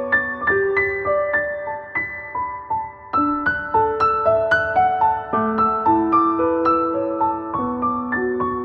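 Gentle background piano music: a slow melody of single struck notes over a few held lower notes.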